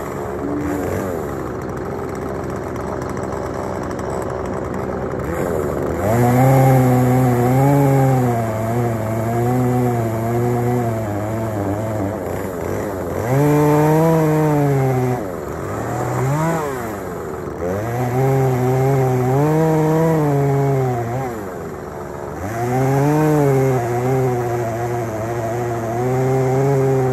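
Chainsaw cutting up a fallen tree trunk: running at a lower steady speed for the first few seconds, then revved up about five times in cuts of a few seconds each, its pitch wavering under load and dropping back between cuts.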